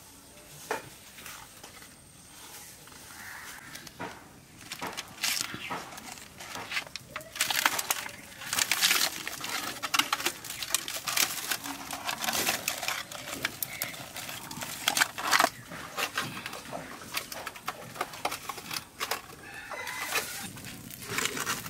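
Dry, stiff wrapping and fresh leaves crackling and rustling in irregular bursts as they are folded and pressed by hand around a leaf parcel. The crackling starts about four seconds in and is densest in the middle.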